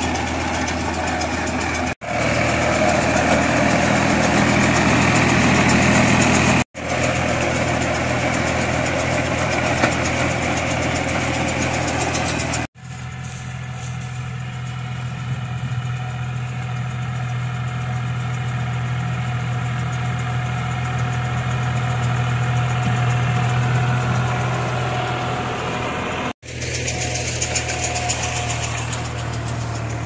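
Tractor engine running steadily while it pulls a mini round baler baling straw. The sound breaks off abruptly several times at edits, and the middle stretch is a smoother, steadier engine note.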